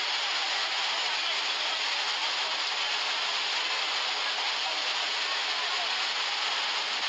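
Heavy rain and fast-flowing lahar floodwater making a steady, unbroken rushing hiss.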